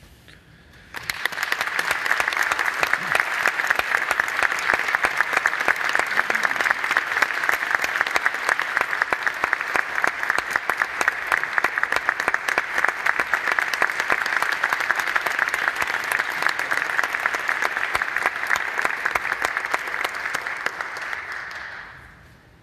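Audience applauding: dense clapping that breaks out suddenly about a second in, holds steady for some twenty seconds, then dies away near the end.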